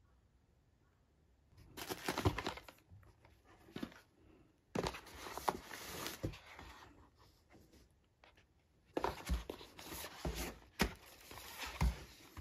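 Packaging being handled in a cardboard box: paperboard product boxes and bubble wrap rustling and crinkling, with a few light knocks. The handling comes in three bursts, about two seconds in, from about five to seven seconds, and from about nine seconds to the end, with quiet between.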